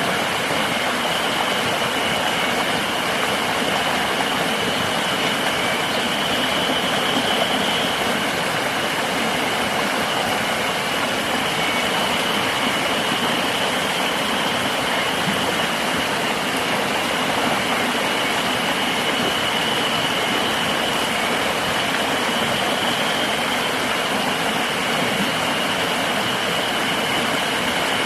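River water rushing steadily, with a continuous high-pitched insect drone over it.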